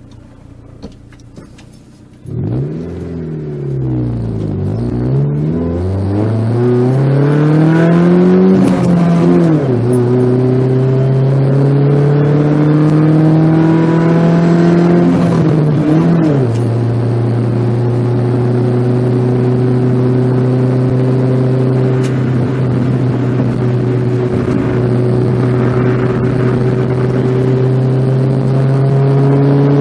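Honda Civic ED6's D15B2 1.5-litre four-cylinder engine breathing through an R&D Thermal aftermarket exhaust, heard from inside the cabin while driving. About two seconds in, the engine note jumps in loudness as the car pulls away. It then climbs in pitch through the gears, with a brief drop at each of two gear changes, and settles into a steady drone at cruising speed.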